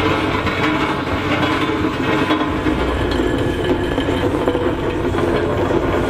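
Aveling & Porter steam road roller running, with a steady, loud mechanical clatter.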